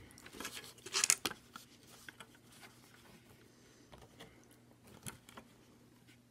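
Styrofoam bowl and plastic fork being handled and slid on a table: a cluster of sharp scrapes and clicks about a second in, then scattered light taps and rustles.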